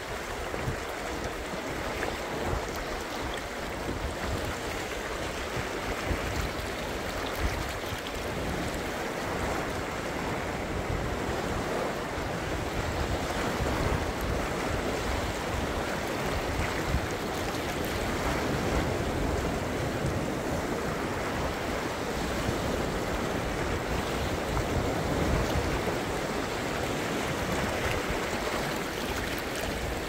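Small ocean waves washing and splashing over a low rocky shore: a steady rush of surf with no break. Wind buffets the microphone underneath it as a low, gusty rumble.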